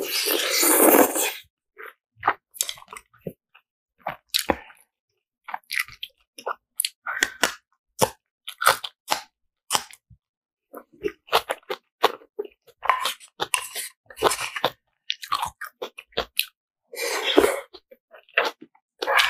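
Close-up eating sounds of instant jjajang ramen: a long loud noodle slurp at the start and another near the end, with wet chewing and many short crisp crunches in between.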